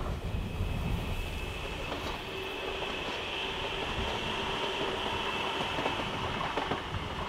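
CP Series 3400 electric multiple unit passing close by: steady rolling wheel-on-rail noise with a steady high whine and a few clicks from the wheels.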